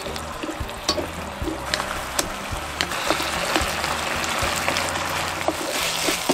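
Sliced sausages and sauce sizzling in a frying pan, with a spatula clicking and scraping against the pan as it stirs.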